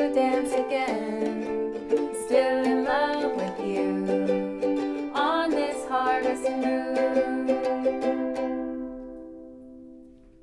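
Two ukuleles strumming the song's closing bars together, with wordless singing over them. About eight seconds in, the last chord is left to ring and fades away.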